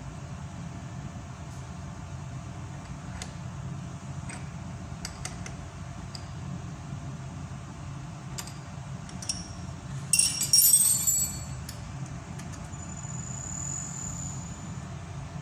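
Ball faceting machine running with a steady low hum, with scattered light metallic clicks and a louder burst of metal clinking lasting about a second, about ten seconds in.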